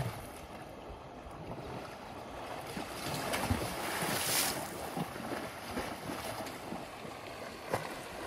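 African elephant splashing in a muddy waterhole: a steady sloshing swells into a loud splash about four seconds in, then settles back to sloshing as the elephant lies down in the water.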